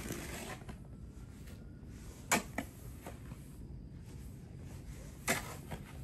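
Snow shovel scraping and scooping snow, with two short, sharp scrapes about three seconds apart, the first about two seconds in.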